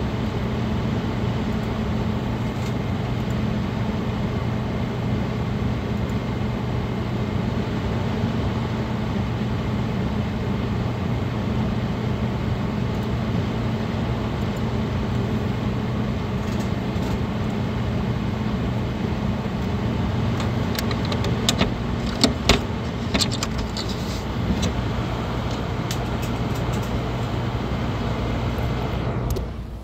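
Cooling fans and liquid-cooler pump of an open gaming PC (Cooler Master case fans, Corsair all-in-one cooler, GTX 970 graphics card) running with a steady whir and a low hum. A few sharp clicks come in the second half, and the sound drops away at the very end.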